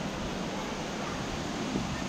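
Steady rushing of water falling at the waterfall, an even hiss with no rhythm.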